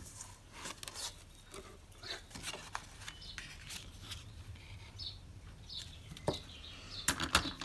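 Soft scratchy rustling and small clicks of twine being pulled off a spool and wrapped around a card panel, the card stock shifting on the mat; a few sharper clicks near the end.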